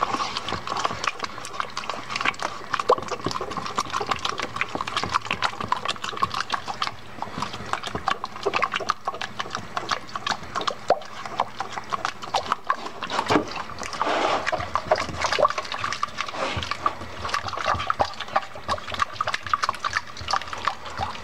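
A silicone spatula stirring wet donut dough in a stainless steel bowl: a continuous run of quick wet squelches and scrapes against the metal.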